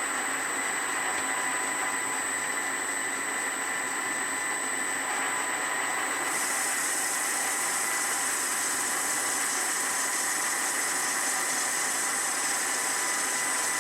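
Metal lathe running steadily with a constant whine while a parting-off tool cuts through brass bar stock. About six seconds in, a high hiss grows louder and stays.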